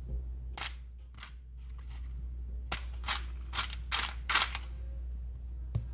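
Loose power MOSFETs in TO-220 packages clicking and clattering against each other and a plastic parts box as hands sort through them: an irregular scatter of sharp clicks, bunched a few seconds in.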